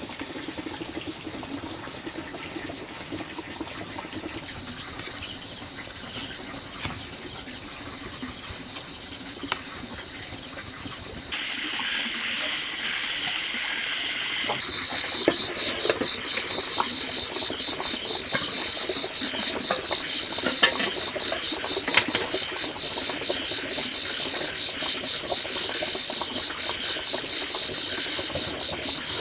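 Insects trilling in a high, rapidly pulsing tone that sets in a few seconds in and gets louder about halfway through, with a few sharp clicks over it.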